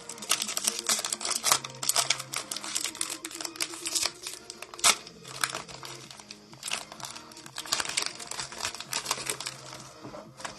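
Crinkling and rapid irregular clicking of a foil trading-card pack being torn open and its cards handled, over faint background music.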